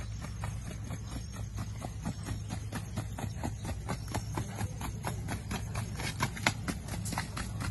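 Hooves of a Mangalarga Marchador horse striking a packed dirt track in a rapid, even rhythm as it moves in its marcha gait, about five strikes a second, growing louder as the horse comes closer.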